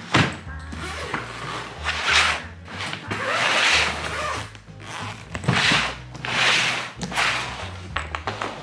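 Hard-shell suitcase being unzipped: several long zipper pulls run around the case, after a knock near the start as it is set down on the wooden floor. Faint background music underneath.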